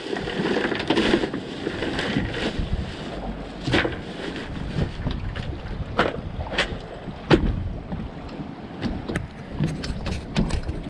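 Wind on the microphone over water lapping around a small skiff moored against a concrete piling, with scattered sharp knocks and clunks, the loudest about seven seconds in.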